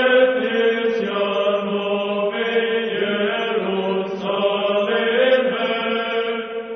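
Orthodox church chant: voices singing long, slowly moving held notes. It cuts off suddenly at the end.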